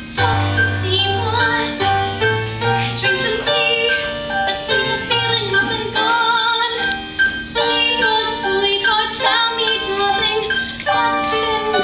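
A young female voice singing a show tune with vibrato, over keyboard accompaniment with sustained low bass notes.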